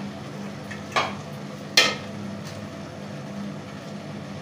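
Slotted metal spatula knocking against an aluminium cooking pot twice while turning fish curry, the second knock louder, over a steady low hum.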